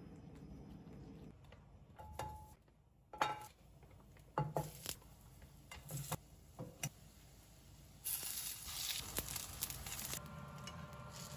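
Kitchen cooking sounds: a string of sharp clinks and knocks of utensils against dishes and pans, then a hiss lasting about two seconds near the end.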